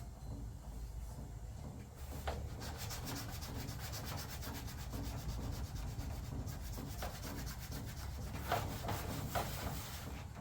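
Hand scrubbing or sanding of an aluminum race-car body panel: rapid back-and-forth rubbing strokes that start about two seconds in, with a few harder scrapes near the end, over a low steady hum.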